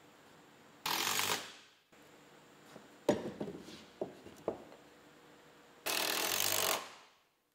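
Cordless DeWalt drill driving screws into 2x4 window framing: two bursts of about a second each, one about a second in and one near six seconds, with a few sharp knocks of wood on wood in between.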